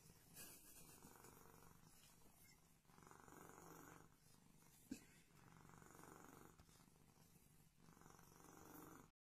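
Domestic cat purring faintly, the purr swelling and fading in slow cycles with its breathing, with one small click about five seconds in. The sound cuts off abruptly near the end.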